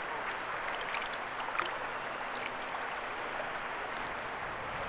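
Shallow river water running steadily, with a few light splashes from a hooked American shad held at the surface by hand.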